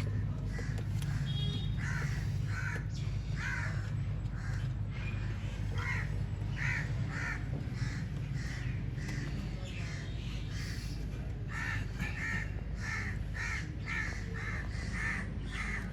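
Crows cawing over and over, with a quicker run of caws near the end, over a steady low hum.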